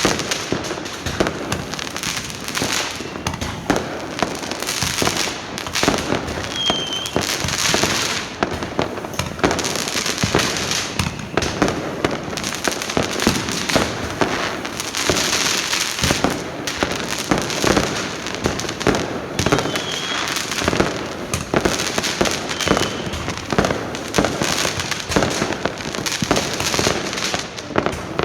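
Fireworks going off without pause: many overlapping bangs and crackles.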